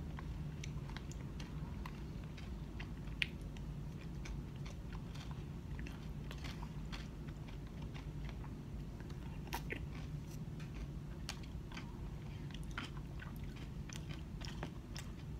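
Close-up chewing and small mouth sounds of someone eating an acai bowl, with scattered light clicks and scrapes of a plastic spoon against a plastic cup, over a steady low hum.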